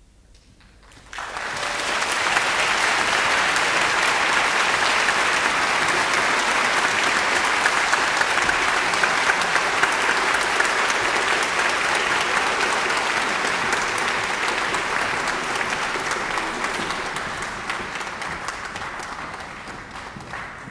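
Audience applause that breaks out suddenly about a second in, holds as dense, steady clapping, and tapers off toward the end.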